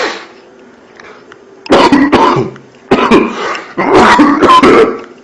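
A man coughing and clearing his throat in three loud bouts about a second apart, starting about two seconds in. It is the irritative cough of a throat that feels as if something is stuck in it.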